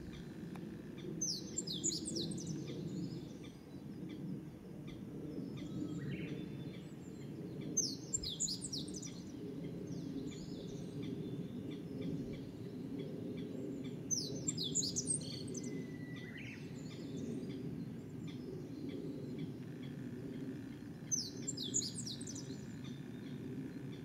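Crested kingfisher calling: four short bursts of rapid, falling high notes, about one every six to seven seconds, over a steady low background rumble.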